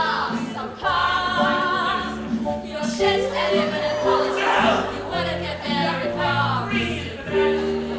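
Live band playing a stage musical number with voices singing long held notes over a steady bass line.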